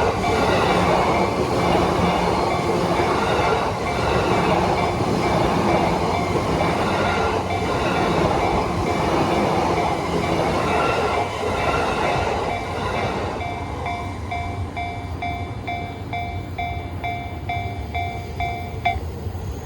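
A train runs over the level crossing with wheel clatter, while the crossing's electronic warning bell dings steadily at about two to three strokes a second. The train noise fades about two thirds of the way in, leaving the bell alone until it cuts off near the end.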